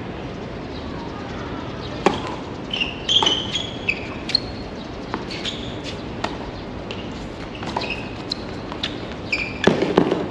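Tennis rally on a hard court: sharp pops of the ball off rackets and court, irregularly spaced a second or so apart, with short high squeaks in between.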